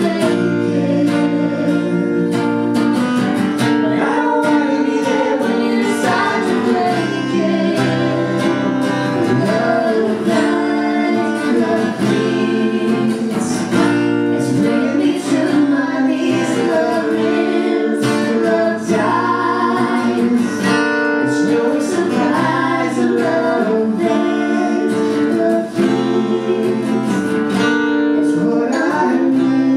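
Acoustic guitar strummed with a man and a woman singing a song together, a slow ballad sung live into microphones.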